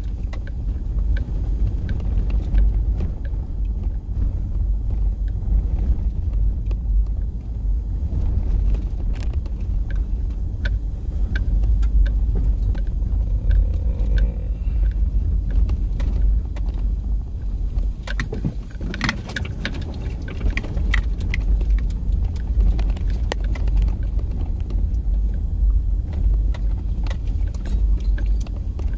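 Inside the cabin of a four-wheel-drive vehicle driving over rough desert sand tracks: a steady low rumble of engine and tyres, with frequent small rattles and clicks as the cabin jolts, and a flurry of louder rattles about two-thirds of the way through.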